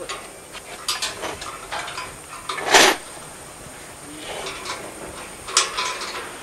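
Irregular metal knocks and clanks from work on a steel structure, with a louder, short clattering burst about three seconds in and another sharp clank near the end.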